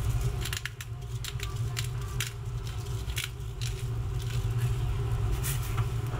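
Pepper mill grinding black pepper: a run of irregular crunching clicks over a steady low rumble.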